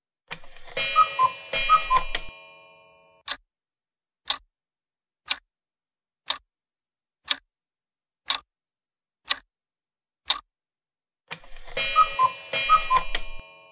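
Countdown-timer sound effect: a clock ticking about once a second. A short, bright chime jingle of a few quick notes sounds near the start and again near the end, the second as the correct answer is revealed.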